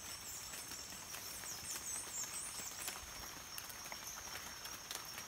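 Steady high-pitched insect drone, with quick high chirping about one and a half to three seconds in and faint scattered rustles and ticks.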